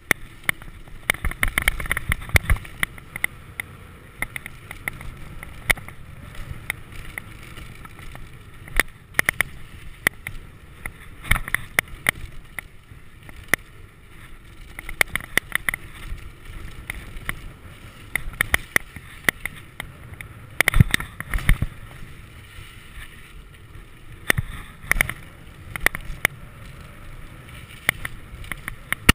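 Mountain bike ridden fast down a dirt trail: tyres rolling over hardpack and loose gravel under a steady low rumble, with irregular rattles and sharp knocks from the bike over bumps, bunching into clattering clusters on rougher sections.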